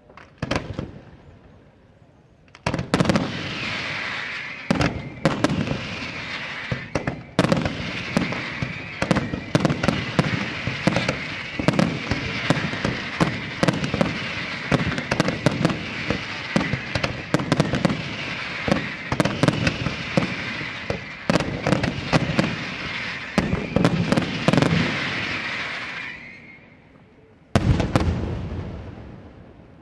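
Aerial firework shells bursting in a display. One bang comes first, then a rapid barrage of explosions over a continuous hiss that lasts about twenty seconds and stops suddenly. A last cluster of loud bangs comes near the end.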